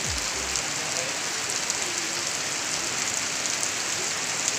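Rain falling steadily in a downpour: an even hiss with scattered drop patters throughout. A low falling tone fades out within the first second.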